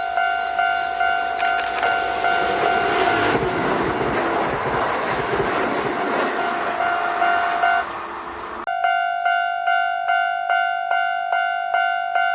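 Japanese level-crossing alarm ringing its two-tone electronic chime about twice a second. About three seconds in, an electric train rushes over the crossing and its wheel and running noise drowns the chime for several seconds. Near nine seconds in the sound changes abruptly back to the chime ringing clear.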